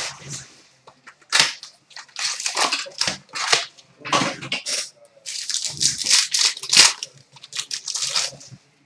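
Foil wrappers of trading card packs crinkling and tearing as they are opened, in a run of irregular sharp crackles.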